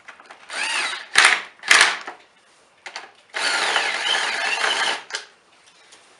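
Impact driver spinning 10 mm bolts in to hold the cooling fan on a radiator: a short run, two quick trigger pulls, then a longer run of about a second and a half, the motor's pitch rising and falling.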